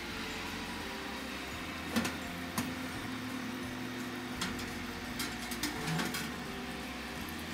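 Steady whir of an electric oven's fan running with the door open. Several light clinks and knocks come as the glass baking dish is drawn out along the wire oven rack.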